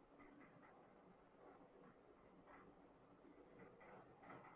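Marker pen writing on a whiteboard: faint, short scratching strokes as letters are drawn.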